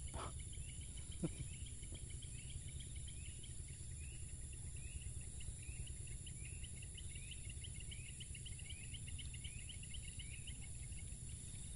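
Outdoor ambience of calling insects: a high steady drone with short rising chirps repeated steadily, over a low rumble. One soft knock about a second in.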